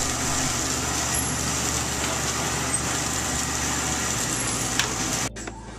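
Steady rushing noise of a commercial kitchen at a gas range and griddle. It stops abruptly about five seconds in.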